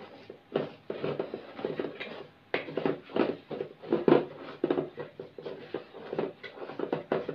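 A wooden stick stirring and scraping thick, crumbly boiled rice-flour dough in a metal pot, an irregular run of scrapes and soft knocks.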